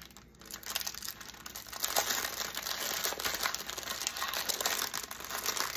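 Thin plastic bags of crystal diamond-painting drills crinkling and rustling as they are handled, with small crackles and clicks throughout. It gets louder from about two seconds in.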